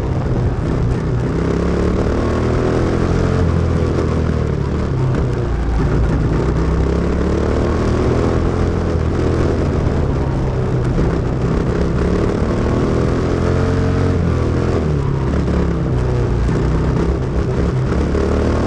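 Quarter midget's Briggs & Stratton Animal single-cylinder engine running hard, its pitch rising and falling again and again as the car goes around the turns and straights of a short dirt oval.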